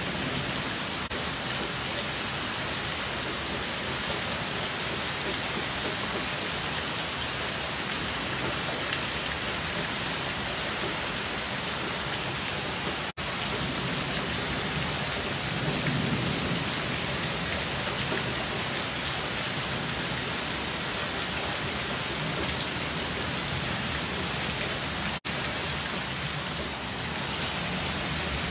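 Heavy wind-driven rain pouring down in a thunderstorm, a steady loud hiss. A low rumble swells about halfway through, and the sound drops out for an instant twice.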